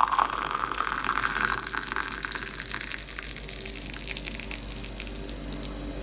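Hot linden tea pouring from a stainless-steel whistling kettle into a glass mug, a steady splashing stream that grows softer after about two seconds as the mug fills.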